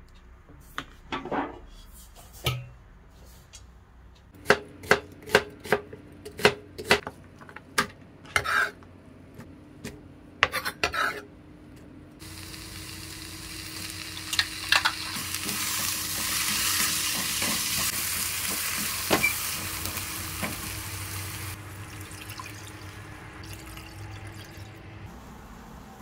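Food frying in a hot pan: first a quick series of sharp clinks of a utensil against the pan, then a sudden sizzle about halfway through that swells and slowly eases off.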